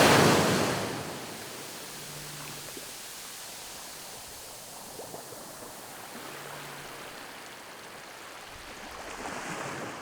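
Steady rush of water from a waterfall, after a louder burst of rushing noise that fades within the first second. A faint low hum comes in briefly twice.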